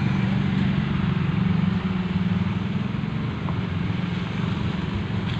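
A motor vehicle engine running steadily, a low hum over a constant hiss, the hum easing a little about two seconds in.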